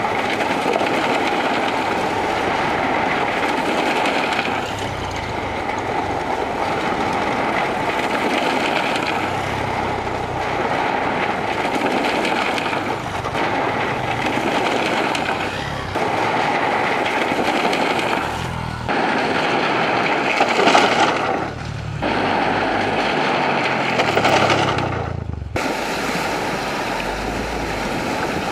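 Small 125cc trail motorcycles riding one after another across a bamboo bridge, engines running under a steady rush of noise. Near the end an engine revs up in a few rising steps, then the sound changes abruptly.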